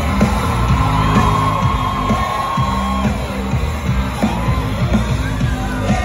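Loud pop music over a hall's sound system with a strong repeating bass line, with audience members yelling and whooping over it.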